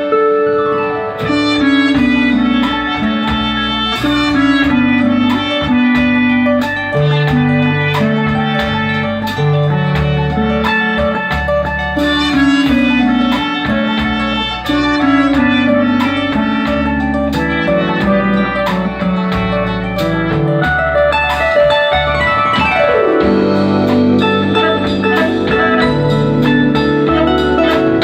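Instrumental show music with a moving bass line and regular percussive clicks. A little past the middle, a note glides steeply down in pitch.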